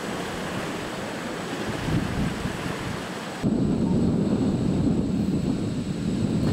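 Steady rushing wind and sea noise on the deck of a ship under way. About three and a half seconds in it cuts abruptly to a louder, deeper rumble of wind buffeting the microphone.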